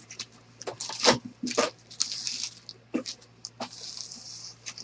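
Foil-wrapped trading-card packs crinkling and knocking together as a stack of them is picked up and moved: a run of short taps and rustles, with longer stretches of crinkling about two seconds in and again near the end.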